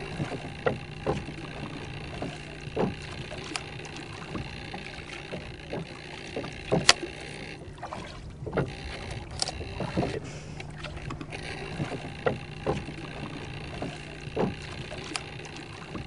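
Light, irregular knocks and clicks, one every second or so, over a low steady hum, aboard a small boat while char-trolling tackle is handled and stowed in a wooden box.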